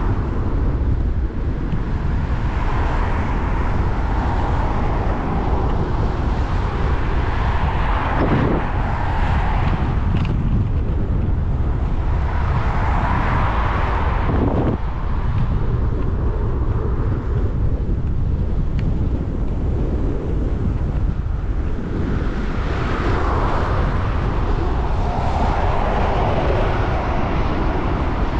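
Headwind buffeting the microphone of a cap-mounted GoPro while riding: a loud, steady low rumble with a noisy haze that swells and fades every few seconds as the gusts come and go.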